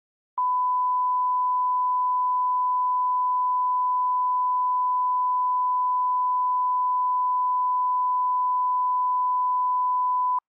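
Television line-up test tone: a single steady 1 kHz pure tone played with the colour bars as a level reference at the head of a tape. It switches on with a click just after the start, holds unchanged for about ten seconds, and cuts off abruptly with a click.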